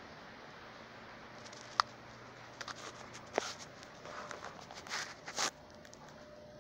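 Footsteps with scattered clicks and scuffs over a faint steady hiss, the loudest scuffs coming about five seconds in.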